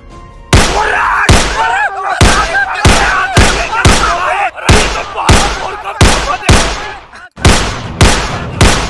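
A steady volley of gunshots, about two sharp cracks a second, with men yelling through the first few seconds and a brief break just past seven seconds.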